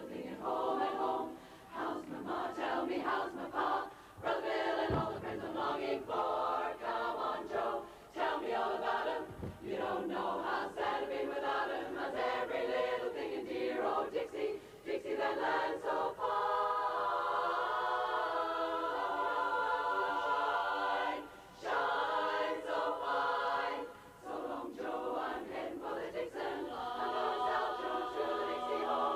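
Women's barbershop chorus singing a cappella in close four-part harmony, with long held chords in the second half and brief breaks between phrases.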